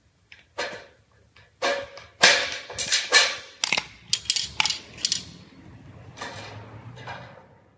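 Tin snips cutting into the corner of a painted sheet-steel box gutter: a run of sharp metallic snips and clacks, with the thin sheet briefly ringing and rattling. Softer handling knocks follow as the tools are set down and picked up.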